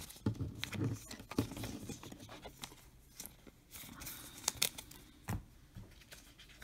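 Topps Chrome trading cards being handled and flipped through by hand: scattered light clicks and slides as the glossy cards rub and tap against each other, with some crinkling of a foil pack wrapper.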